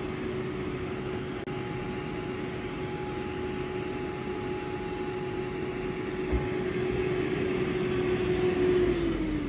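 A motor running steadily at one even pitch, over a broad rushing background. Near the end its pitch drops and then rises again.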